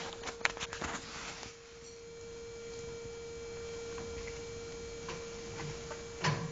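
A few sharp clicks and a short rustle in the first second and a half, then a steady hum with a single louder knock near the end, as the dog and ferret play at the cage bars.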